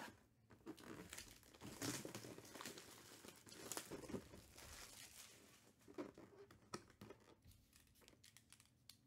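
Clear plastic shrink wrap crinkling and tearing as it is pulled off a cardboard box, in irregular crackles that are densest in the first half and thin out after about seven seconds.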